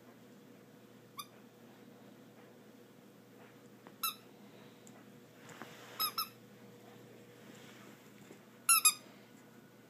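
A squeaky dog toy bone squeaked as a dog bites down on it: short, sharp, high squeaks at irregular intervals, a faint one first, then single and double squeaks, with the loudest pair near the end.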